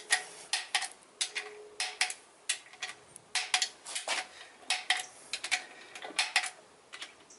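Hand socket ratchet clicking in short strokes, a quick click or two about every half second, as the nuts on ARP main bearing cap studs are turned down.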